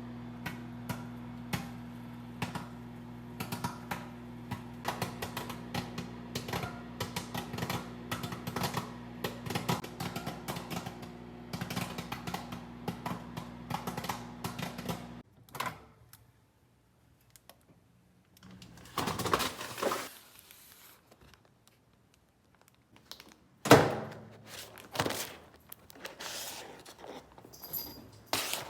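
Kettle corn kernels popping in a pot as a rapid, irregular patter of sharp pops over a steady low hum. The hum and popping cut off suddenly about halfway. A few separate scrapes and rustles follow, with one loud knock.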